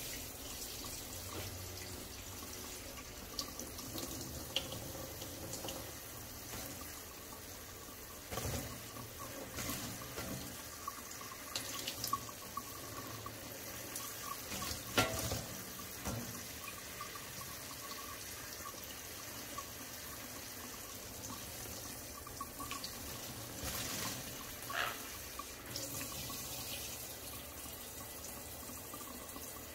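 Kitchen tap running steadily into a stainless steel sink, the stream falling over a bathing sun conure. A few sudden short sharp sounds stand out here and there.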